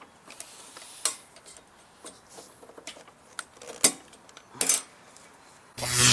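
Small metal parts and tools clinking and knocking while a mower engine's carburetor linkage is worked loose by hand, with a brief louder whir near the end.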